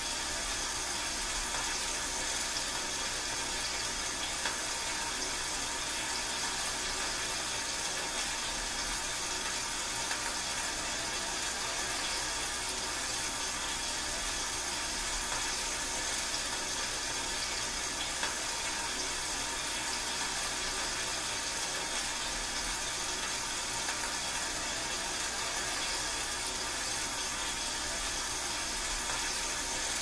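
Steady rain falling, an even hiss that runs without breaks or individual drops standing out.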